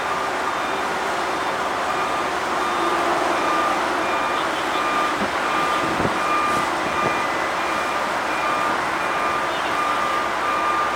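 Backup alarm of a reversing construction vehicle, about one evenly spaced beep a second, over steady machinery and wind noise, with a faint low knock or two midway.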